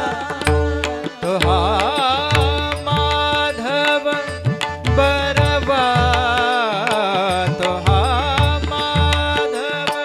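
Marathi abhang devotional music played live: a male voice sings a wavering, ornamented line without clear words over the steady held tones of a harmonium. A pakhawaj and a tabla keep a rhythm of deep bass strokes and sharp taps throughout.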